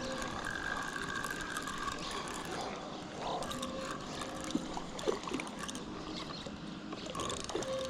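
Fishing reel cranked or its drag ticking, a fast run of small gear clicks, over the steady rush of spillway water.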